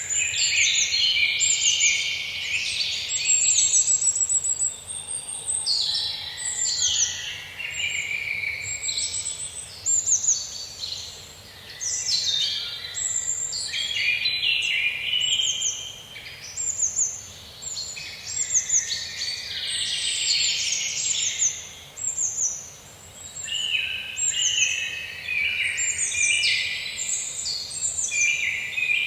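Birdsong chorus: several songbirds singing at once, their chirping and warbling phrases overlapping almost without a break, with short lulls every several seconds.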